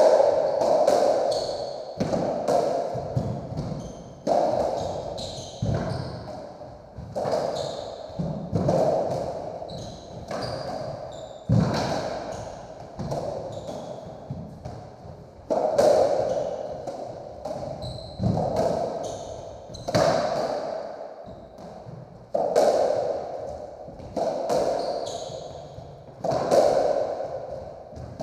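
Racketball rally on a squash court: the ball is struck by the rackets and smacks off the walls about every one to two seconds, each hit ringing on in the enclosed court.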